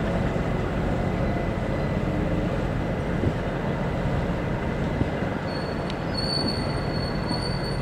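Boat engine running steadily, with the rush of water and wind. A thin, high-pitched whine comes in about five and a half seconds in and holds.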